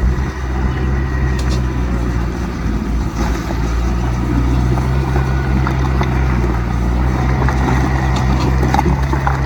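Heavy diesel earthmoving machinery running steadily under load, with a few light knocks over the engine.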